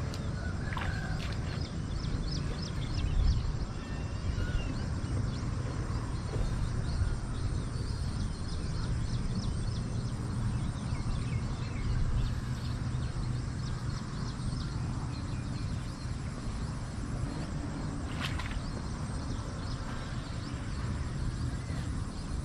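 Outdoor ambience: a steady low rumble with faint, scattered short high chirps and ticks.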